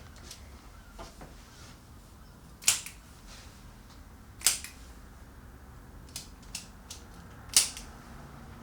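Spring-loaded Activator chiropractic adjusting instrument firing sharp clicks as it thrusts on single vertebrae: three loud clicks a second or two apart, with a few fainter clicks between the second and third.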